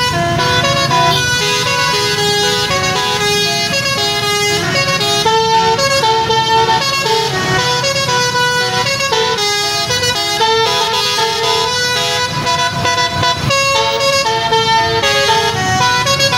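Bus basuri telolet horn, a multi-tone musical air horn, playing a tune of stepping notes without a break, over traffic rumble.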